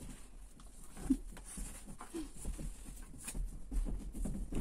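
Dog playing with and mouthing an old cloth child's hat on a bed: scattered rustling, pawing and chewing noises, with two short grunts about one and two seconds in.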